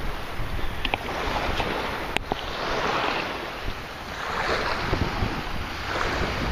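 Wind buffeting the microphone over water sloshing and washing in slow swells, with one sharp click about two seconds in.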